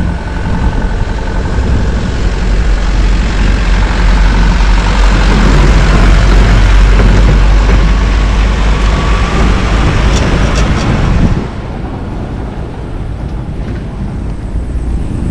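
Loud travel noise on the move: wind rushing over the action camera's microphone over a deep rumble of the rough road. It builds to its loudest mid-way, has a few sharp rattles, and drops suddenly about eleven seconds in.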